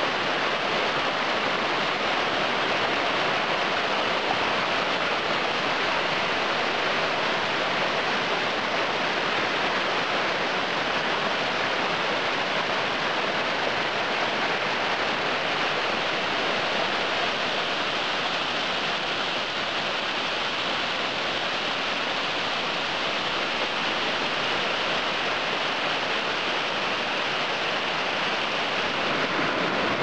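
Mountain waterfall of the Yauzlar river rushing steadily over rock: a continuous, even hiss of falling water.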